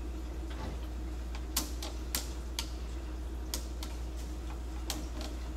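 A metal lathe runs with a steady low hum between threading passes. About eight sharp clicks come at irregular intervals over it.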